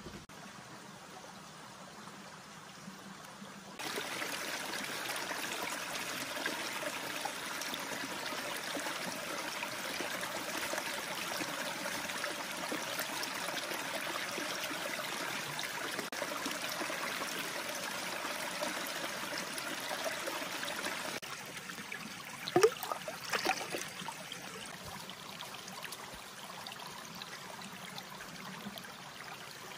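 Shallow forest stream running over rocks, a steady rush of water that starts suddenly a few seconds in and cuts off abruptly after about seventeen seconds. A few sharp knocks follow soon after, the loudest sounds here.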